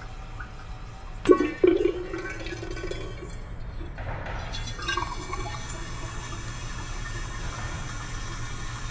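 Two sharp metallic clanks with a short ring about a second in, then from about four seconds a rush of water that settles into a steady hiss: a public restroom toilet flushing.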